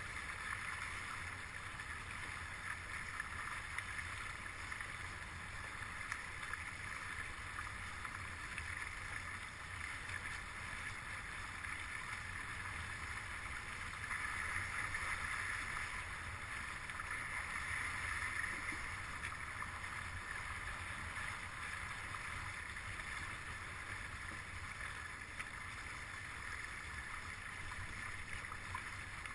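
Steady hiss of water rushing past the hull and foils of a Stunt S9 foiling catamaran sailing in light wind, with low wind buffeting on the boat-mounted microphone. It swells a little about halfway through.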